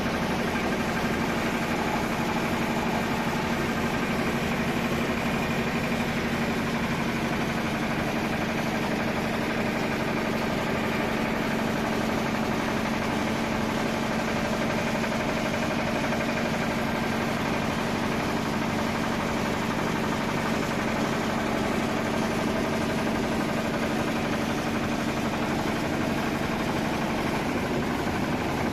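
12 HP single-cylinder water-cooled diesel engine running steadily, belt-driving a No. 8 rice huller that is milling paddy, the engine's beat and the huller's running noise together.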